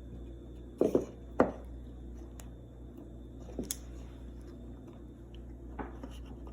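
A knife cutting into the plastic water line of a refrigerator's ice maker: a few short, sharp cutting and handling sounds, two of them about a second in, then fainter ones a little past halfway and near the end, over a steady low hum.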